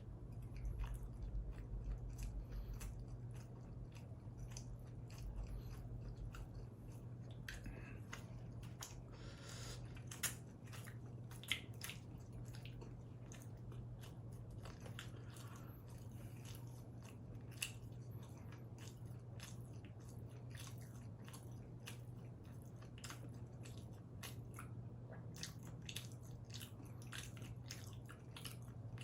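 Close-miked biting and chewing of combination pizza, a dense run of small wet and crunchy mouth clicks, over a steady low hum.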